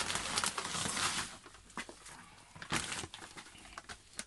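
Gritty rustling and crunching of bonsai substrate being scooped and handled, in a long stretch over the first second or so, then in short bursts.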